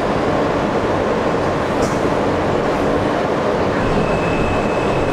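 New York City Subway Q train running through an underground tunnel: the steady rumble of wheels on rail and the train's running gear, heard from inside the front car. A thin, high steady tone joins it near the end.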